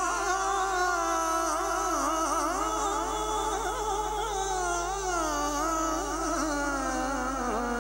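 A man singing a devotional Punjabi kalam into a microphone, one long drawn-out melodic line with no clear words, the pitch wavering and gliding continuously. A steady low electrical hum runs underneath.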